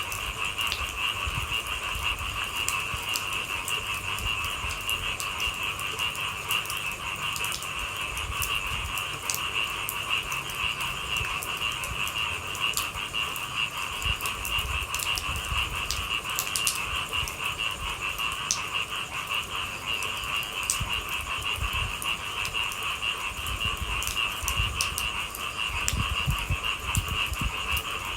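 Steady night chorus of frogs calling continuously, with scattered sharp taps of raindrops over it.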